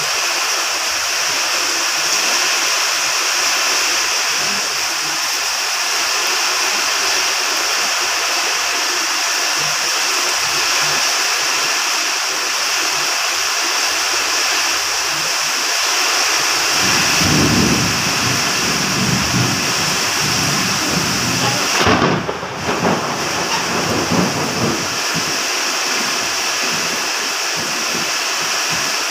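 Heavy rain pouring steadily in a thunderstorm. Over halfway through, thunder rumbles in, breaks into a sharp crack, then rolls away over a few seconds.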